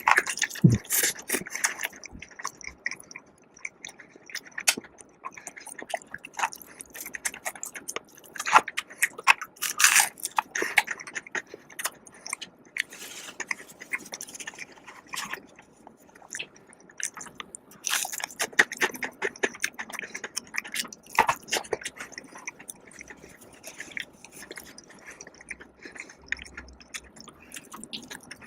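Close-up eating sounds: biting and chewing of crispy fried food, with many irregular crunchy clicks and crackles.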